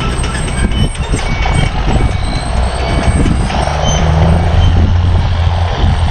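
Heavy machine's engine running steadily, growing louder and deeper about three and a half seconds in, with faint short repeated beeps above it.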